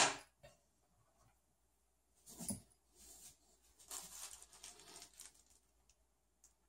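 Handling noise from hands working parts and tools in an open desktop computer case. A loud rustle at the very start fades quickly, a short knock follows about two and a half seconds in, then a couple of seconds of light scraping and rustling.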